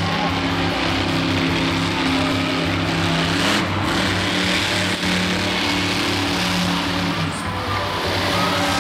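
Monster truck's big supercharged V8 engine running under throttle, its low note shifting up and down a couple of times as the driver works the pedal, over a loud wash of arena noise.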